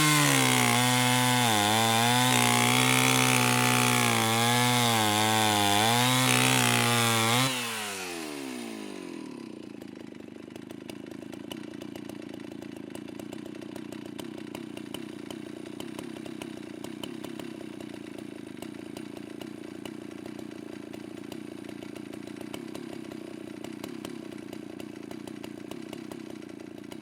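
Petrol chainsaw engine running at high revs, its pitch dipping and recovering a few times. About seven seconds in the throttle is released: the pitch falls quickly and the saw settles into a steady, much quieter idle.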